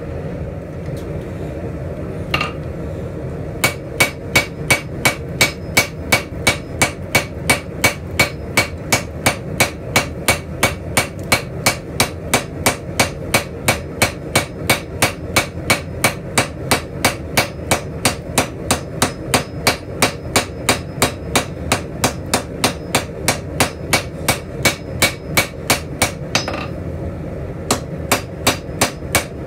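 Cross-peen hammer striking a red-hot steel spatula handle on an anvil to texture it: a steady run of blows, about two or three a second, starting a few seconds in, with a brief pause near the end before they resume. A steady low hum runs underneath.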